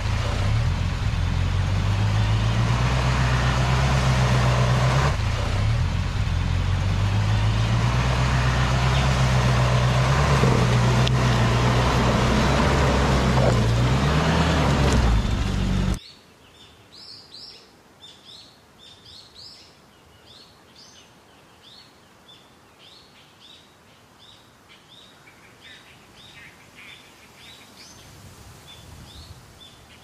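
Off-road buggy engine running under load as it drives through muddy water, its pitch wavering. About halfway through it cuts off abruptly, leaving a quiet background with many faint, quick bird chirps.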